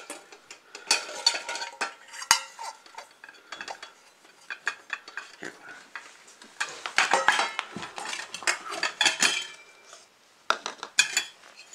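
Nested stainless steel mess kit pieces (frying pan, plate, pot, lids) clanking and scraping against each other as they are pulled apart and set down, in irregular clusters of metallic clanks.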